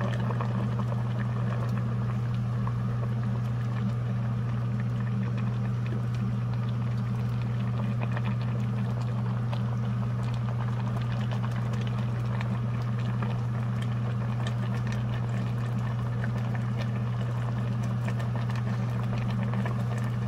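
Kimchi bean-sprout soup simmering in a steel pot, with scattered small bubbling pops over a steady low hum.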